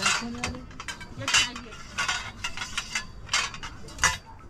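Metal frame pipes clinking and knocking against each other as they are handled and fitted together, a series of sharp clanks at uneven intervals.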